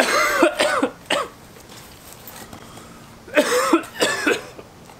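A man coughing and huffing out breath in short, loud vocal bursts: a cluster in the first second, then another about three seconds in. He is reacting to the burn of a very hot chicken wing.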